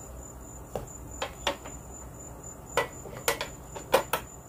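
Sharp plastic and metal clicks and knocks, about eight, from handling a Springfield Armory XD-S Mod.2 9mm pistol and its magazines over the hard plastic case, the loudest near the end. A steady high cricket chirp goes on underneath.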